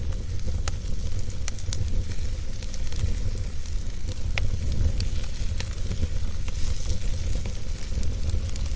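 Wood burning in a fire pit, with scattered sharp crackles and pops over a steady low rumble.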